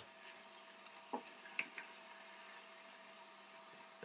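Metal spoon stirring grated carrots in a steel pot, scraping and knocking against the pot a few times about a second in and again about a second and a half in, over a faint steady hum.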